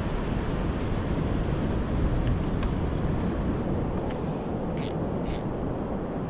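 Wind buffeting the microphone over the rumble of breaking surf. A couple of faint ticks come midway, and two short scratchy sounds come about five seconds in.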